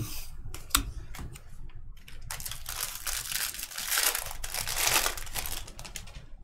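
A few sharp clicks of trading cards being shuffled in the hands, then from about two seconds in the foil wrapper of a Bowman Draft baseball card pack crinkling for about four seconds as it is handled.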